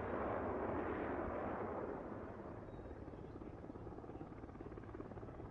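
Military jets flying past in formation: a rush of jet engine noise that fades about two seconds in, leaving a quieter low rumble.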